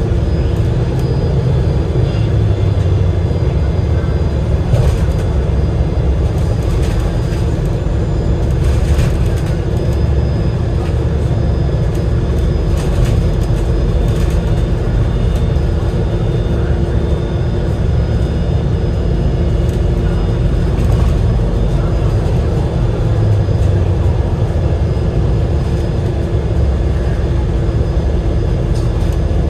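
A moving Enviro500 MMC double-decker bus heard from inside: the steady low rumble of its Cummins L9E diesel engine and Voith DIWA gearbox, with a steady hum over it and occasional short clicks and rattles.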